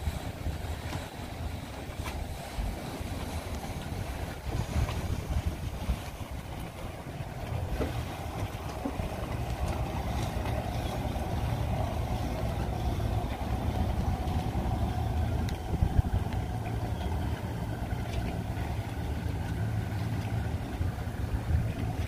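Motorboat engine running steadily as a center-console boat approaches and passes close by, growing louder toward the middle, with some wind on the microphone.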